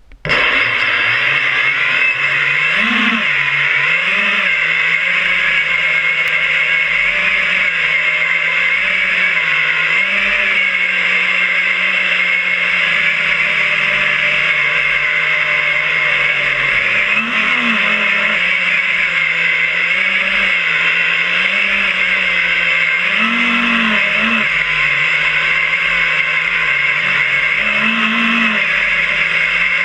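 FPV quadcopter's electric motors and propellers running loudly and steadily, the pitch rising briefly now and then as the throttle is punched.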